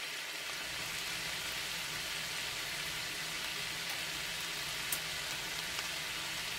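Shredded cabbage frying uncovered in a cast-iron skillet: a steady sizzle, with one faint pop about five seconds in.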